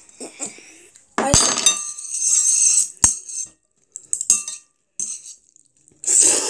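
Metal chopsticks clinking and scraping against a ceramic bowl as they stir and lift instant jjajang noodles. Sharp clicks come about a second in and again about three seconds in, each with a brief ring. A louder rush of noise comes near the end.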